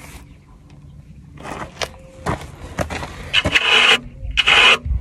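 A rubber curry comb scraping over a horse's coat in short brisk strokes. Near the end come two louder, longer rasping rubs.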